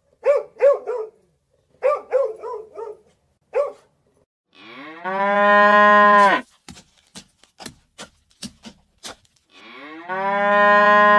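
A dog barks in quick clusters of short barks for the first few seconds. Then a cow moos twice, each a long call about two seconds that rises at the start and then holds steady. A series of sharp clicks comes between the two moos.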